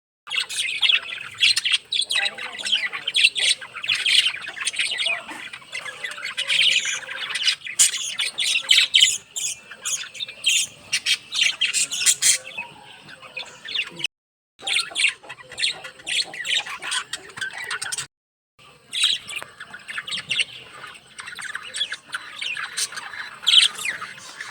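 A flock of pet lovebirds and budgies chirping and squawking in a dense, rapid chatter, broken by two short silences in the second half.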